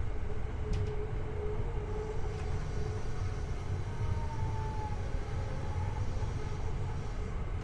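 Running noise of a Hankyu 8300-series electric train heard from the floor over its bogie: a deep rumble of wheels on rail with a steady whine from the Toyo IGBT-VVVF inverter and induction traction motors. About four seconds in, a higher tone slides slightly lower. The recordist calls this bogie an abnormal-sounding one.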